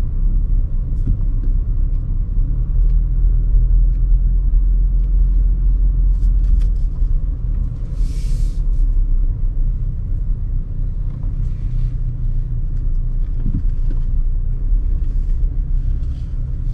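Car interior noise while driving: a steady low rumble of engine and road, heard from inside the cabin, with a brief hiss about halfway through.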